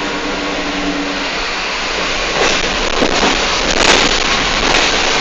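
Moving bus heard from inside: a steady rushing road and engine noise that grows louder about two seconds in, with a few short knocks and rattles.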